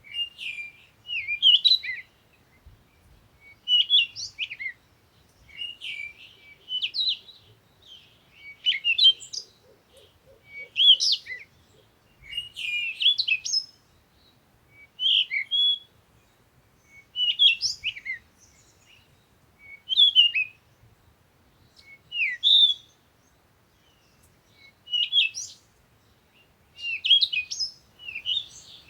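A songbird singing short, varied whistled phrases, one about every two seconds, each lasting under a second.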